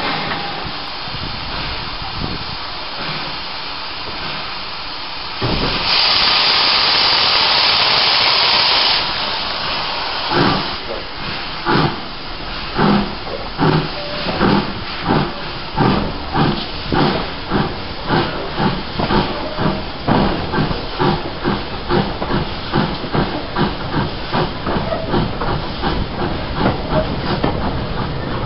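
J15 0-6-0 steam locomotive starting away with a train: a steady steam hiss, a loud blast of hissing steam about six seconds in lasting some three seconds, then exhaust chuffs that quicken from about one a second to two or three a second as it gathers speed.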